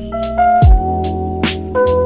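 Lo-fi hip-hop instrumental: a laid-back drum beat of deep kicks and crisp snare or hi-hat hits under sustained keyboard chords that change a couple of times.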